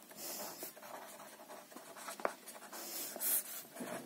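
Felt-tip pen scratching on paper as words are handwritten, in short strokes, with a longer, louder stroke near the end. A single light knock a little past two seconds in.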